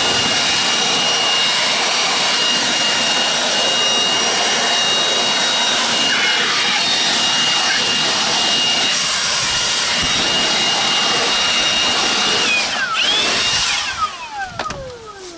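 Milwaukee cordless leaf blower running flat out with a steady high whine, blasting dust out of a laser water chiller's condenser coil. Near the end the trigger is let go and the blower winds down with a falling whine.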